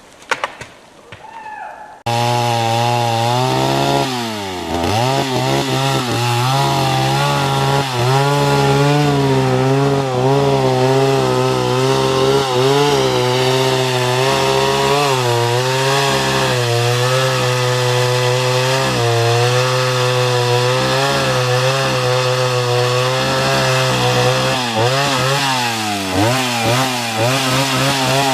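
Chainsaw running hard and cutting wood. It starts abruptly about two seconds in and holds a steady high pitch, which drops briefly and recovers a couple of seconds later and again near the end.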